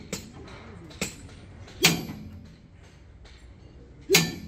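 Sharp metal clinks and knocks of steel parts and tools being handled at a truck wheel hub: four strikes, the loudest about two seconds in and near the end, each with a brief ring.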